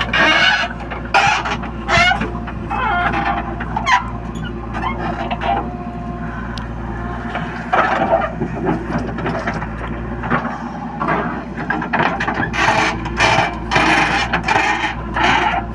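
Diesel engine of a JCB 3DX backhoe loader running steadily under load while it digs and loads mud, with repeated short squeals and scraping noises about once a second over the engine.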